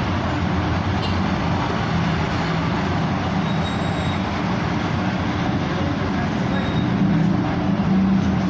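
Steady street traffic noise from passing motorbikes and cars, engines running, growing a little louder near the end.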